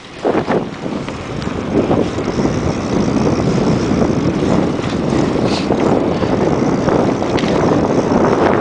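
Wind rushing over the microphone of a camera carried on a moving bicycle: a steady noise that builds about a second in, with a few faint ticks.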